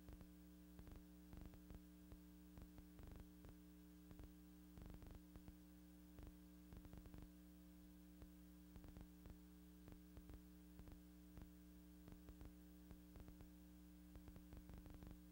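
Near silence: a steady low hum with faint, irregular clicks and crackle scattered through it.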